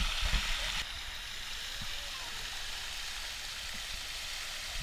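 Water pouring off the rim of a mushroom-shaped pool fountain and splashing into the pool: a steady rushing hiss. It is louder with a few low thumps in the first second, then settles to an even, slightly quieter rush.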